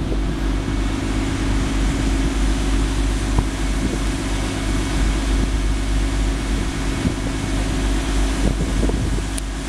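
A boat's engine drones steadily under way, a constant low hum, over a steady rush of wind and water.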